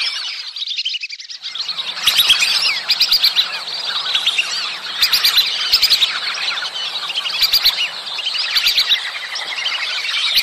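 A flock of whistling ducks calling: many high, short whistled notes overlapping in a near-continuous chatter, with a brief lull about a second in. These are the birds' mating-season calls.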